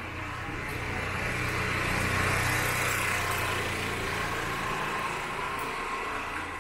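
A motor vehicle's engine passing close by on the street, growing louder to a peak about two seconds in and then fading away.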